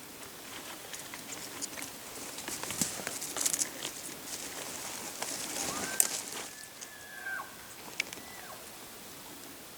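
Rustling and scattered clicks, then a bull elk bugling: a call that rises to a high, held whistle for about a second and a half, then falls away.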